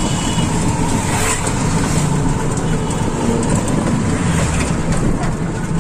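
Steady rumble of a road vehicle running along, engine and road noise continuous.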